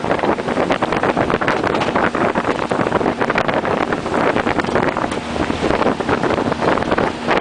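Fishing boat under way on a lake: heavy wind buffeting the microphone over the rush and splash of water along the hull.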